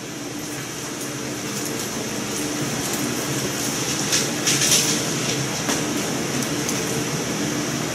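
Steady classroom background noise: a continuous mechanical hum with a hiss over it, and a few brief rustles about four to five seconds in.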